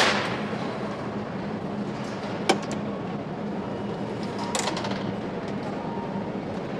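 Factory assembly-hall hum with a faint steady tone. A loud sharp knock comes at the very start, a single click about two and a half seconds in, and a few light clanks around four and a half seconds.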